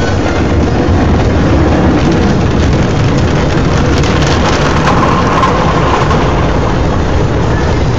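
Automatic car wash heard from inside the car: water and soap spraying and drumming on the glass and body in a loud, steady wash.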